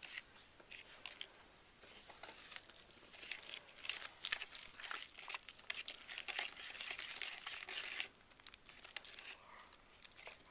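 Thin plastic packaging and trays crinkling and crackling as they are handled, busiest in the middle stretch and quieter near the end.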